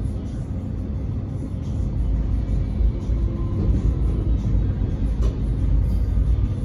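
Steady low rumble of an X'Trapolis electric suburban train running along the track, heard from inside the carriage, with a faint steady hum over it.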